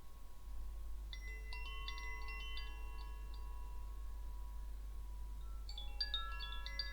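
Wind chime played, a run of bright struck tones about a second in and another run near the end, the notes ringing on and overlapping at several pitches.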